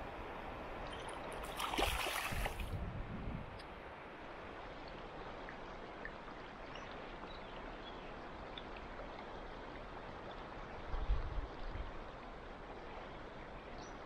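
Shallow river running over stones, a steady rush of flowing water, with a brief louder splash about two seconds in and a few low bumps later on.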